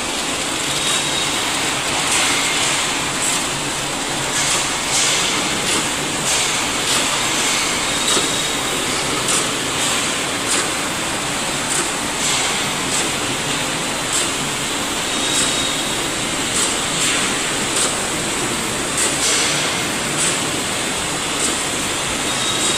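Steel tube mill running, with steel strip feeding through its forming and guide rolls: a loud, steady metallic hiss and rumble with a short sharp crack every second or so.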